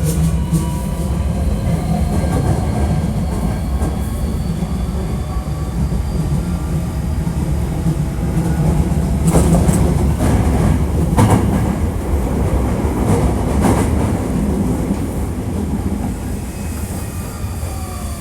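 Hankyu 1300 series electric train running through a subway tunnel, heard from inside the car. A steady wheel-and-track rumble carries faint motor whine tones that glide slowly in pitch, and a few sharp wheel clacks over rail joints come about nine to fourteen seconds in. This set is billed as having an unusual running noise.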